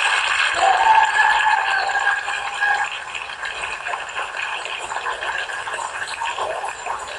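Crowd chatter: many people talking at once in a hall, with one voice held out above the rest for about two seconds near the start.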